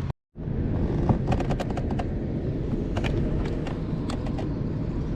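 A rapid, irregular series of sharp clicks and knocks over a steady low rumble, after a brief dropout of all sound at the start.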